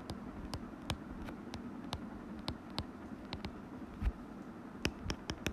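Stylus tip tapping and clicking on a tablet's glass screen during handwriting: irregular light ticks, a few to several a second, over a faint steady hiss.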